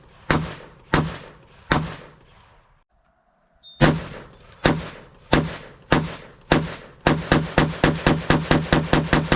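AR-15 rifle firing 5.56 ammunition semi-automatically, about one shot every 0.7 s. The shots pause for about a second near the three-second mark, then resume at the same pace. From about seven seconds in, a faster, even beat of about four strikes a second takes over.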